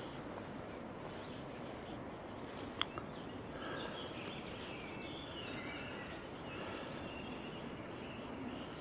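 Steady rush of a fast river in flood, with birds singing faintly over it in short phrases from about a third of the way in. A single sharp click just before the middle.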